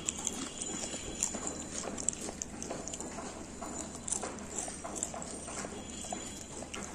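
Crisp homemade fried potato chips crackling and crunching in many small irregular clicks.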